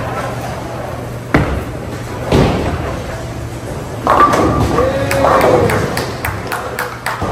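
Bowling alley din: two heavy thuds of bowling balls about a second apart, then a busier stretch of quick clatter in the second half.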